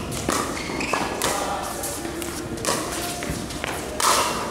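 Pickleball rally: paddles hitting a hard plastic ball back and forth, each hit a sharp pock ringing in a large indoor hall. The loudest hit comes near the end.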